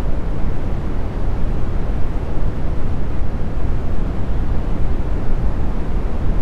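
Brown noise: a steady, even hiss weighted to the low end, a soft rumble with no events or changes.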